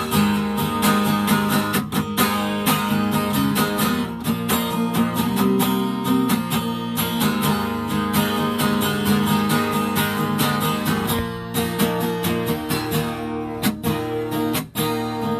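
Acoustic guitar strummed steadily in a country song's instrumental passage between verses, with no singing.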